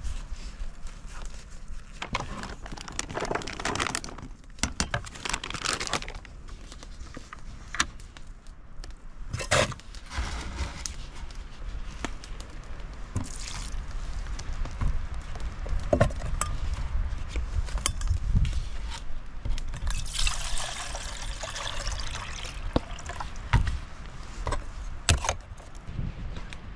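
Water poured from a plastic jug into a metal pan, a steady splashing hiss, among several sharp knocks and clinks of camp gear being handled.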